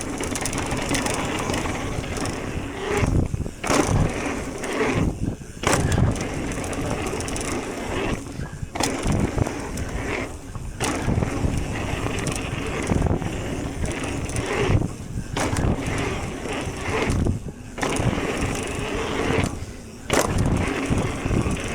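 Electric mountain bike riding fast down a dirt trail: a steady rush of tyre and wind noise, broken by frequent knocks and rattles as the bike goes over bumps and drops.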